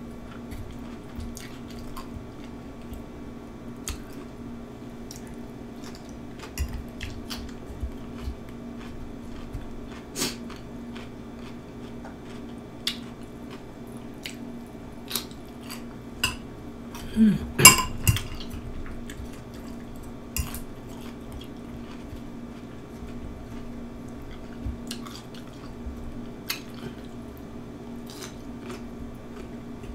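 A metal fork clinks and scrapes against a glass bowl as cucumber slices in ranch dressing are picked up and eaten. Scattered small clicks and eating sounds come through, with a louder cluster of clinks about 17 seconds in. A steady low hum runs underneath.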